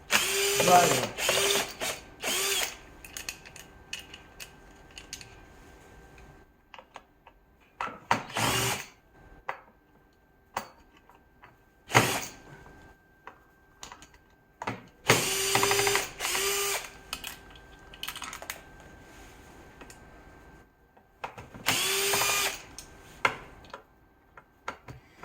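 Cordless electric screwdriver running in several short bursts with a steady whine, backing out the four screws that hold an HMI panel's display module to its process module. Small clicks and taps from handling the screws and panel fall between the bursts.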